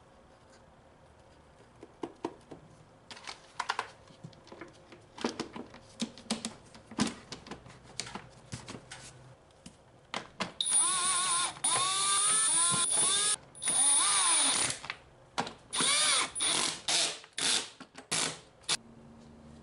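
Plastic clicks and knocks as the air filter housing cover is fitted into place, then a Milwaukee cordless driver running in several bursts, its motor whine rising and falling, driving the screws of the air box cover. The driver is loudest about halfway in, followed by shorter bursts near the end.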